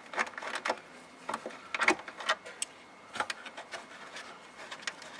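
Irregular small clicks, ticks and rattles of hands working the 8 mm mounting nuts off the taillight studs and handling the taillight housing.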